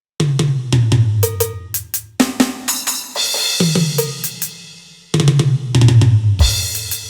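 Drum and percussion sounds from a Roland SPD-30 Octapad, played as a fast run of hits: deep tom-like strikes that drop in pitch, snare and cymbal hits, and a cymbal wash twice. It starts after a brief silence.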